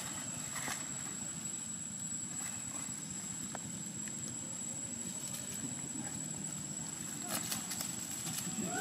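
Steady low outdoor background rumble, with a few faint crackles about seven seconds in.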